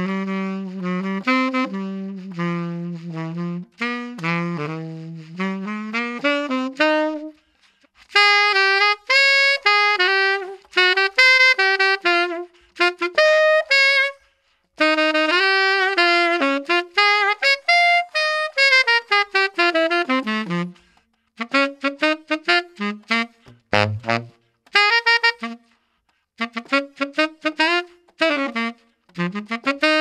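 Solo tenor saxophone playing quick runs of notes in phrases separated by short pauses, with a brief very low note about twenty-four seconds in.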